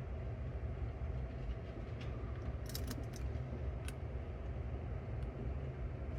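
A few small clicks of a tool working on a cassette deck's tape transport mechanism, a cluster of them near the middle, over a steady low rumble.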